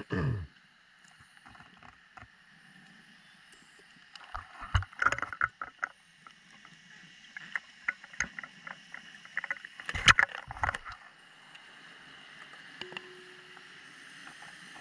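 Underwater sound through a camera housing: two bursts of bubbling, crackling clicks and low thuds from a diver's exhaled bubbles, about four seconds in and again around eight to eleven seconds, over a faint steady hiss. A short falling tone sounds at the very start.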